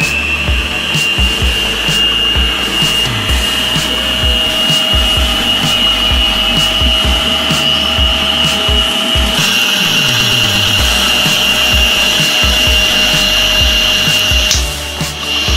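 Arno stand mixer's electric motor running steadily with a high whine as its beater mixes cake batter in the bowl. The sound changes about nine seconds in, taking on a higher, brighter whine.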